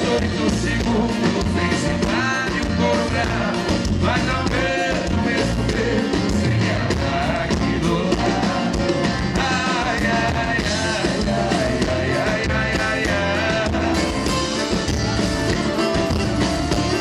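Sertanejo song performed by a male vocal duo singing over a full band, playing steadily throughout.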